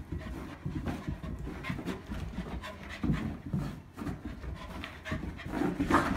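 Two American Eskimo dogs play-wrestling on carpet: panting and irregular scuffling of paws and bodies, with a louder burst near the end.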